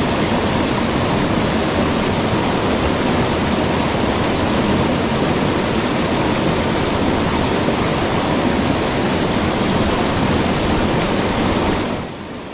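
Waterfall pouring, a loud steady rush of falling water that drops to a quieter level near the end.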